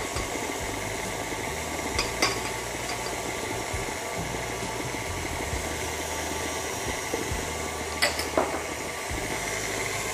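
KitchenAid Artisan stand mixer running steadily, its flat beater working crumbly cookie dough in a stainless steel bowl until it comes together. A few light clicks about two seconds in and again about eight seconds in.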